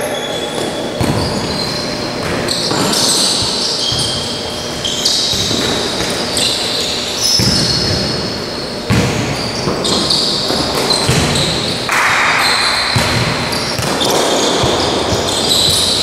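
Futsal match on an indoor hard court: players' shoes squeak in short, high chirps again and again, and the ball is kicked and bounces with sharp knocks, all echoing in the large hall.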